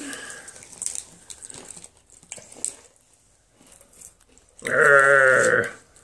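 Faint small clicks, then near the end one loud, bleat-like call about a second long, wavering rapidly in pitch.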